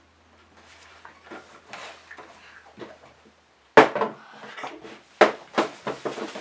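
Fidget toys being handled: soft rustling and small clicks, then a sharp knock about four seconds in and another just after five seconds.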